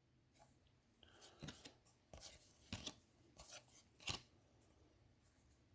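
Faint soft clicks and rustles of trading cards being handled and slid one over another, a handful of separate light ticks with the sharpest about four seconds in.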